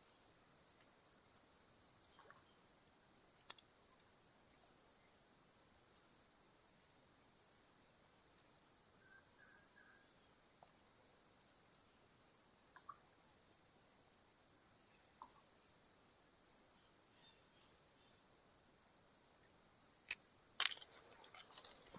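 Insects chirring in a steady, unbroken high-pitched drone, with a fainter pulsing chirp beneath it. Two short clicks sound near the end.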